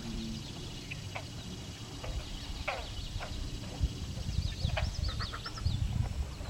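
Least bittern calling with low, guttural clucking notes. A small bird's quick, high chirps come in about four seconds in.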